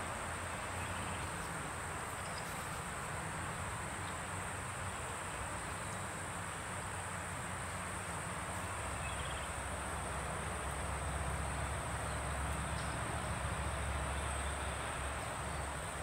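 Insects trilling steadily in a constant high-pitched drone, over an even outdoor hiss and a low rumble that grows slightly stronger in the second half.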